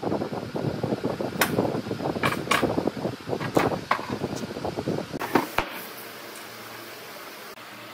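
Irregular thumps, scrapes and sharp clacks as a heavy section of dry tree trunk is handled, turned and set down on a wooden workbench. The knocking stops about six seconds in, leaving a steady low hum.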